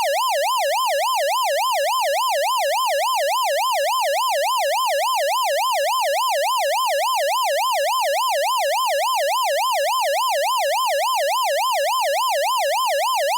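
Countdown timer's electronic end-of-time alarm: a steady, loud, siren-like warbling tone that sweeps up and down about three times a second.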